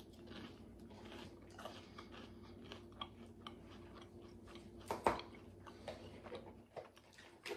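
A person chewing a bite of toast close to the microphone: faint, scattered crunchy clicks, with one sharper click about five seconds in.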